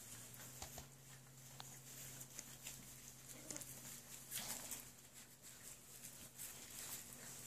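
Whippet puppies eating together from a metal pan: faint scattered lapping, chewing and small clicks, with light rustling of wood-shavings bedding, over a low steady hum.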